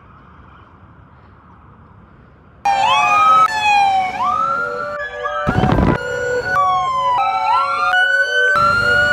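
Faint street background noise, then a quarter of the way in a fast-cut run of emergency-vehicle electronic siren tones starts suddenly: rising and falling wails and yelps that switch abruptly every half second or so. A short loud noisy blast comes a little past the middle.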